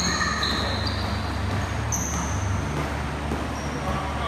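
Steady low mechanical hum, with a few short, high-pitched squeaks of sneakers on the hardwood court near the start, about two seconds in, and near the end.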